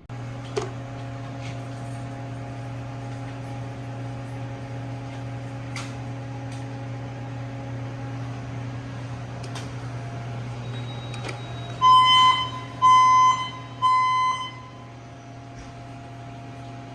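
A steady hum, then about 12 seconds in three loud, even beeps a second apart, the temporal-3 evacuation pattern of a fire alarm signal.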